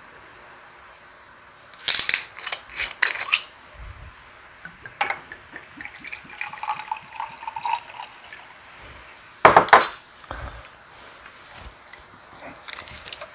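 A soju bottle's metal screw cap cracked open with a quick run of sharp clicks, then soju poured from the glass bottle into a glass for a few seconds. A loud knock comes a little before the end, and a plastic bottle of tonic water is twisted open with small clicks near the end.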